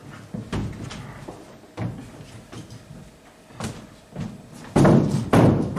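A few separate knocks and thuds, then a louder cluster of them near the end.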